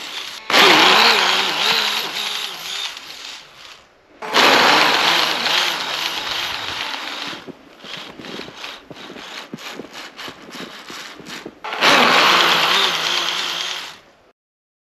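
RC snowmobile's brushless electric motor and geared track drive run under throttle, the whine rising and falling in pitch as the track churns through deep snow. There are three long bursts, with a stretch of short throttle blips between the second and third, and the sound cuts off suddenly near the end.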